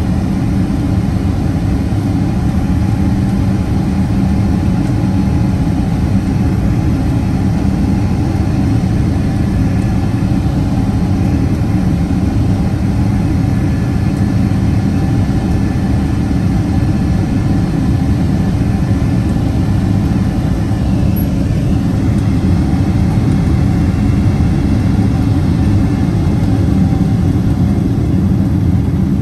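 Steady cabin roar of a Boeing 777-200ER's Rolls-Royce Trent 800 engines and rushing airflow on final approach, heard from a window seat over the wing. It is a loud, even, low rumble.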